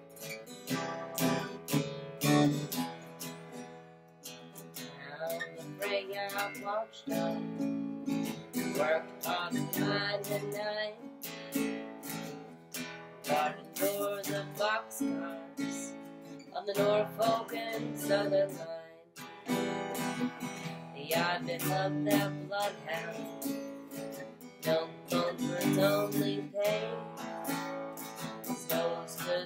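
Acoustic guitar strummed in a steady rhythm, with a harmonica in a neck holder playing the melody over it.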